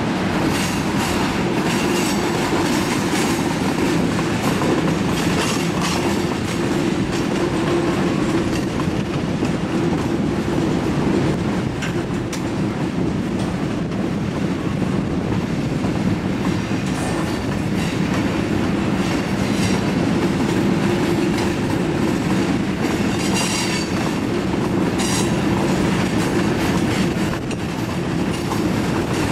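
Freight cars of a long, slow-moving freight train rolling past: a steady rumble with the wheels clicking over the rails, and a few brief high wheel squeals in the later part.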